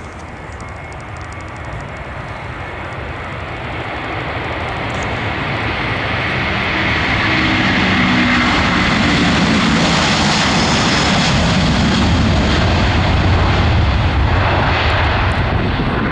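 Airbus A330-300 twin jet engines at takeoff power as the airliner rolls and climbs out, a roar that grows louder over the first several seconds and then holds loud. A few low tones slide downward in pitch as it passes.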